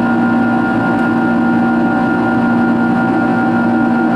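Steady drone of a Boeing 767-336ER's Rolls-Royce RB211 turbofans in flight, heard inside the cabin: a loud, even rush of air and engine noise with a steady hum of several tones, unchanging throughout.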